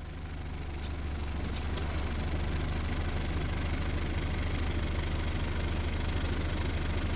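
Diesel 4x4 engine running steadily with a knocking clatter, growing a little louder.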